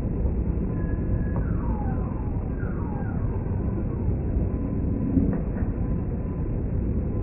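Steady low rumble of a jet aircraft passing overhead, with short tones sweeping down in pitch twice, about a second and a half and three seconds in.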